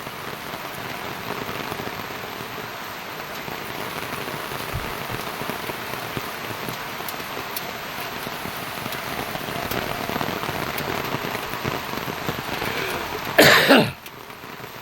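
Steady heavy rain falling, a continuous even hiss of drops, with one short loud burst near the end.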